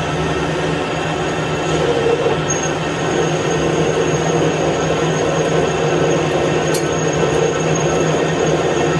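Metal lathe running, its cutting tool turning a taper on a steel shaft: a steady machine drone with gear whine and a low hum. A thin high whine joins about two and a half seconds in, and there is a single sharp click near the seven-second mark.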